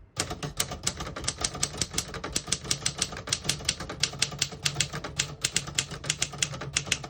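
Remington Torpedo manual portable typewriter being typed on, a steady, quick stream of key and typebar strikes, several a second, as a sentence is typed.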